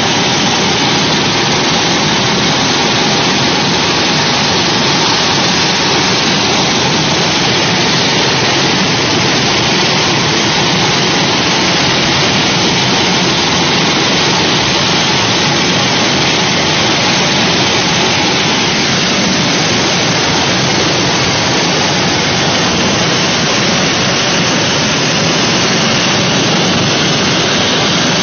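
A helicopter running: a loud, steady rushing of its turbine and rotor wash.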